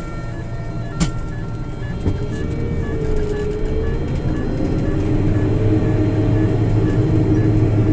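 Ponsse Cobra harvester's diesel engine and drivetrain working as the tracked machine drives through deep snow, heard from the cab. The engine note grows louder and steadier about five seconds in, with a whine that bends up and down in pitch around the middle and a sharp click about a second in.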